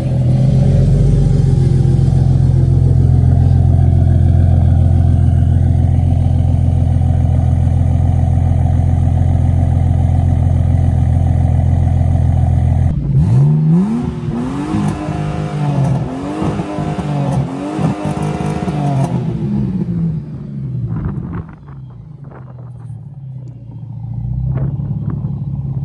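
Ford BA Falcon XR6's 4.0-litre inline-six running at a steady idle just after a cold start. About 13 seconds in it is revved hard about five times in quick succession, pitch rising and falling, up onto the rev limiter of its stock, untuned ECU. It then drops back to a quieter idle.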